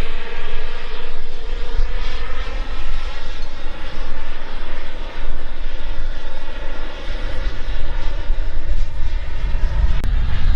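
KingTech K86 G4+ turbine of a 1/8-scale PilotRC F-16 RC jet in flight: a continuous jet rush and whine whose pitch slowly shifts as the model flies by. Low rumble, likely wind on the microphone, grows near the end.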